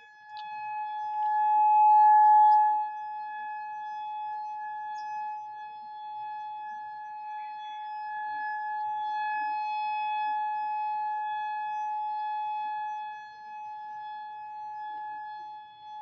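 Outdoor civil defense warning siren sounding one steady, unbroken tone for its monthly test. It swells loudest about two seconds in, then holds with a slow rise and fall in loudness.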